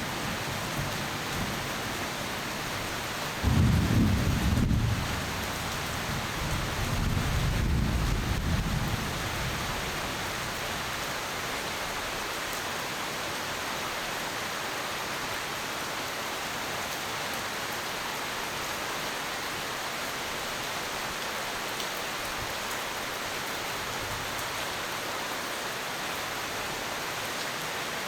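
Steady rain with two low rolls of thunder, the first and louder about three and a half seconds in, the second a couple of seconds later, then rain alone.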